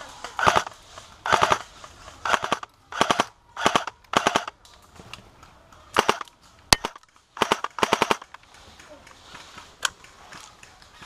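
Airsoft rifle firing about nine short bursts of rapid automatic fire, each lasting a fraction of a second, over the first eight seconds. A couple of single sharp clicks follow.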